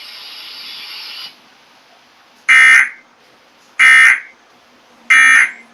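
Three short, loud bursts of Emergency Alert System SAME digital data tones, evenly spaced about a second and a quarter apart: the end-of-message code that closes an EAS warning. They follow about a second of steady broadcast hiss that cuts off.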